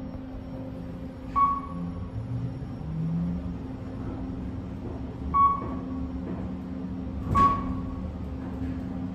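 Steady hum inside a Kone EcoDisc machine-room-less elevator car, broken three times by a short high ping: about a second and a half in, about five seconds in, and just past seven seconds, the last with a click.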